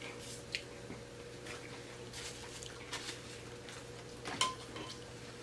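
Mouth sounds of eating a saucy taco: soft wet chewing and squishing with a few small smacks and clicks, over a faint steady hum.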